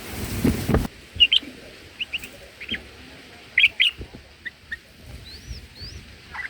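A short burst of rustling noise, then a bulbul calling in short, sharp chirps, some in quick pairs, followed by a few fainter up-and-down whistled notes near the end.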